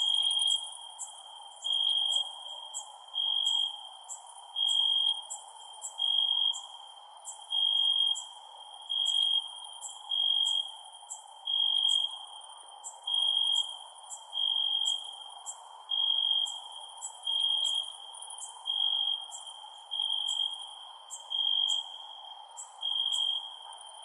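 Crickets chirping: a regular short chirp a little over a second apart, with a fainter, higher-pitched insect pulsing and a steady low hiss beneath.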